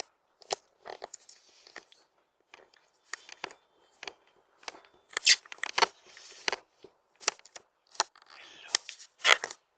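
Irregular sharp clicks and crackles with short rustling scrapes in between, as of things being handled close to the microphone; the loudest clicks come about five seconds in and near the end.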